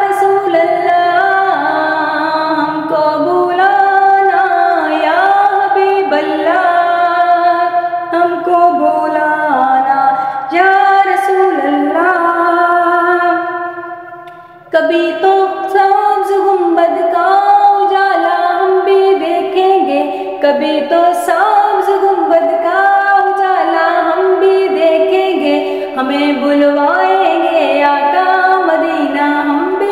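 A woman singing a naat, an Urdu devotional song, unaccompanied in long held, ornamented phrases. About halfway through the singing fades away briefly, then picks up again abruptly.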